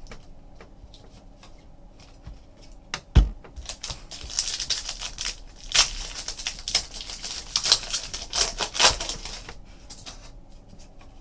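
Foil trading-card pack being torn open and its wrapper crinkled by hand, with a thump about three seconds in and a run of dense crackling from about four to nine seconds as the pack is opened and the cards are pulled out.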